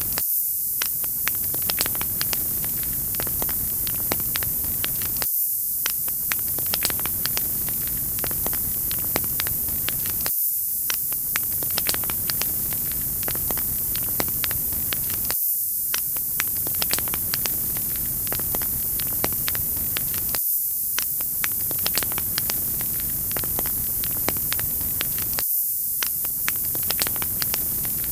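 Wood fire crackling, with many sharp pops and snaps over a steady bright hiss. It is a short fire recording looped about every five seconds.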